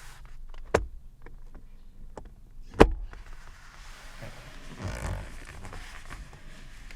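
Two sharp knocks on a Lexus LX450D, the second the louder, followed by a few seconds of rubbing or scraping that swells and fades.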